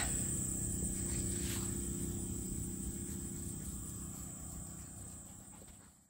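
Crickets trilling in one steady high-pitched tone over a low background hum, the whole fading away near the end.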